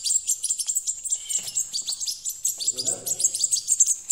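European goldfinch chicks giving rapid, continuous high-pitched chirping calls, their begging calls while being hand-fed.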